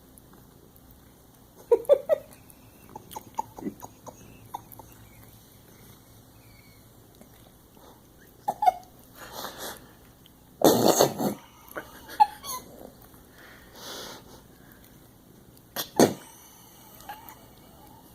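A cat licking at whipped cream on its nose and lips: scattered small tongue smacks and clicks. About eleven seconds in comes a short, loud sneeze-like burst, and a sharp click comes near the end.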